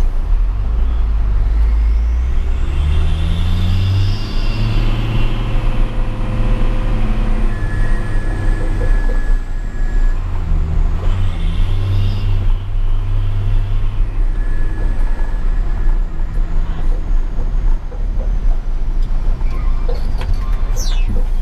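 Hino 500 truck's diesel engine pulling through its Cung Sulawesi aftermarket exhaust. The revs climb twice and drop back, as if through gear changes, and a faint high whistle rises and falls with them.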